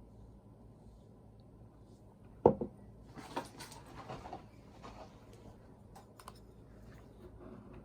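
Kitchen utensils and dishware handled: one sharp knock about two and a half seconds in, then a run of light clicks and scraping.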